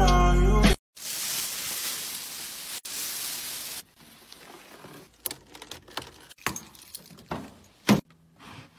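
Music cuts off under a second in, followed by a steady hiss for about three seconds. Then come light scattered clicks and key jingles with footsteps on paving while someone walks up to a car and gets in, with a sharper knock near the end.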